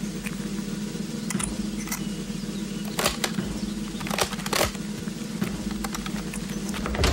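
Sharp metallic clicks and clacks of rifle bolts and actions being worked as the firing-squad rifles are loaded, in a few quick pairs around three and four and a half seconds in, over a steady low hum. A louder thump comes right at the end.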